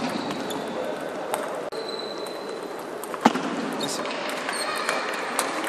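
Table tennis rally: a handful of irregular sharp clicks of the ball off the paddles and the table, the loudest about three seconds in, over a steady murmur of voices echoing in a large hall.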